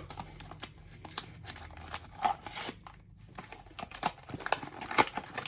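Blind-box packaging being handled and opened: a run of irregular small clicks, taps and light crinkles from cardboard and wrapper, with a short pause about three seconds in.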